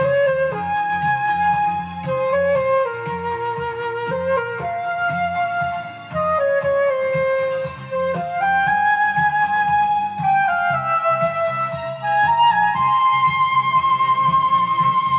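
Silver concert flute playing a slow melody of long held notes, stepping between pitches, over a backing track with bass and a steady beat.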